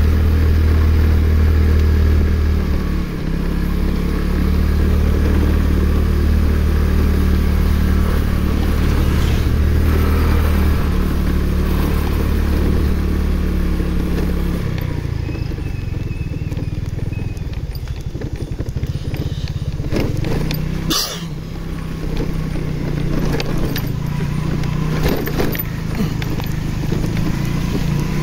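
Motorcycle engine running while riding along, its steady note shifting a few times and settling lower about halfway through. One brief sharp sound a little past two-thirds of the way.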